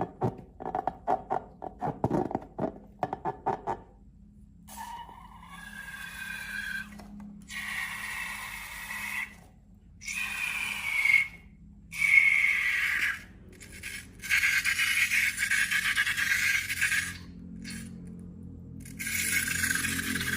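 Slime-making sounds: quick light taps for about four seconds, then a series of long squeaky scraping strokes, each lasting one to three seconds with short pauses between.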